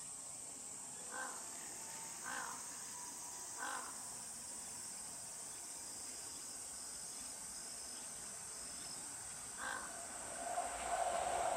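Crows cawing, three short caws in the first four seconds and one more near the ten-second mark, over a steady high hiss. Near the end the running noise of an approaching Toei 5500 series electric train rises and grows louder.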